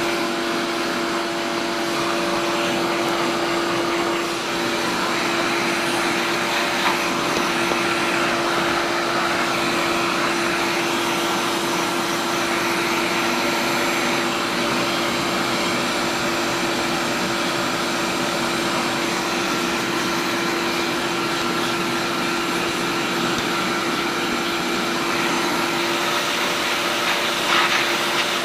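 Shop vacuum running steadily, with a constant hum, as its hose nozzle sucks cast iron chips and dust off a milling machine table and vise. A brief click is heard about a quarter of the way in and another near the end.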